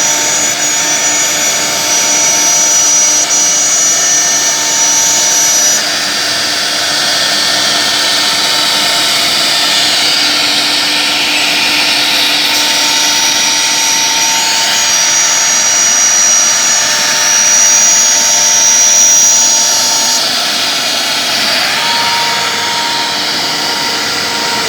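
Single-head CNC nesting router cutting furniture panel board: a steady loud machining noise with a high spindle whine that drops out for a few seconds and then returns, and a tone that slides down near the end.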